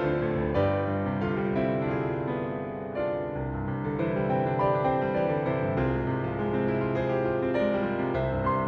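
Solo piano music from the Garritan CFX sampled Yamaha CFX concert grand: a flowing passage of sustained notes and chords, softening briefly about three seconds in before building again.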